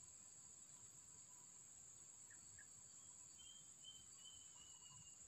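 Faint, steady, high-pitched drone of insects, with a few faint bird chirps in the second half.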